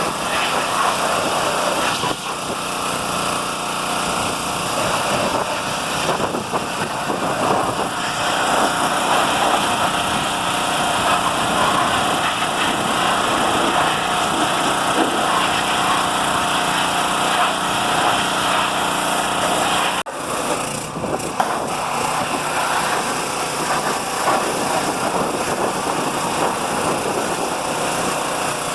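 Gas-engine pressure washer running steadily while its spray blasts mud off a truck's underside, a constant engine drone under a loud hiss. The sound breaks off for an instant about two-thirds of the way through and then carries on the same.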